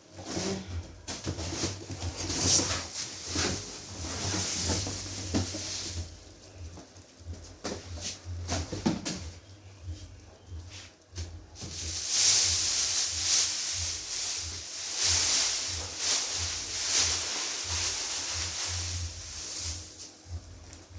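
Packaging being handled and pulled off during an unboxing: irregular rustling and crinkling in long stretches, with knocks and bumps in between.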